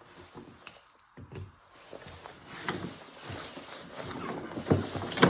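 Irregular clicks, knocks and rustling of jumper cable clamps and metal being handled while the cables are hooked to a battery, with a sharper knock near the end.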